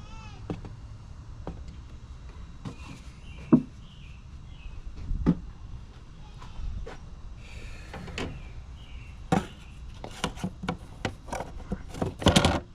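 Scattered knocks and clicks of handling, with a quick cluster of louder clicks near the end, over a low background rumble and faint bird chirps.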